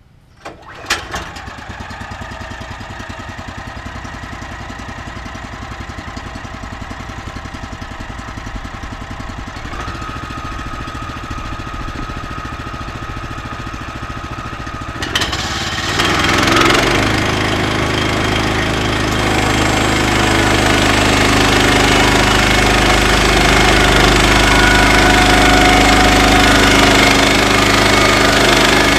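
Woodland Mills HM126 band sawmill's gas engine starting about a second in and idling steadily, then throttled up about fifteen seconds in. From there it runs louder and steady at full speed, with more hiss, as the band blade comes up to speed.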